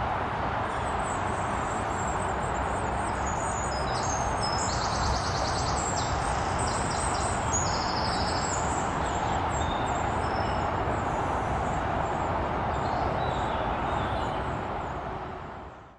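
Tits chirping and trilling in quick high-pitched calls over a steady background rumble. The calls are busiest in the middle, and everything fades out over the last two seconds.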